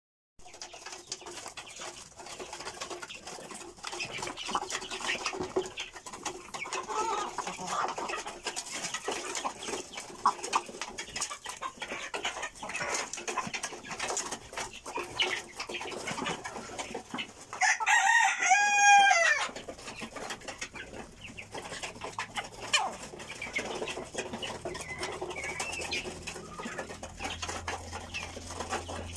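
A flock of chickens pecking grain from a feed trough, with a steady patter of pecks and scattered soft clucking. About two-thirds of the way through, a rooster crows once, the loudest sound.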